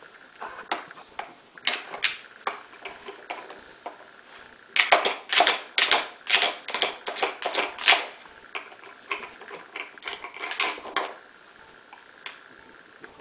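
Plastic drawers of a dog casino treat puzzle clicking and clattering as a dog noses and pushes at them. Scattered clicks give way to a dense run of rapid clacks in the middle and a shorter run near the end.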